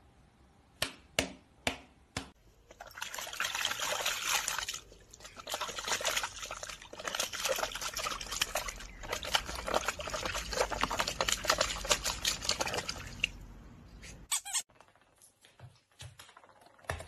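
Husky puppy splashing and pawing in water in a shallow plastic tub: a dense run of small splashes for about ten seconds. A few short clicks come before it, and a few light knocks after it near the end.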